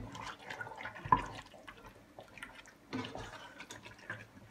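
Wooden spatula stirring raw chicken pieces through a thick tomato-onion masala in a pot: wet, sloppy stirring with scattered clicks and a sharper knock about a second in.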